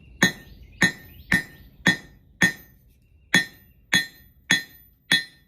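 Hand hammer striking hot steel bar on an anvil: about nine ringing blows, roughly two a second, with a short pause about halfway. These are half-face blows setting down a short end of the bar to be drawn out into a hanging loop.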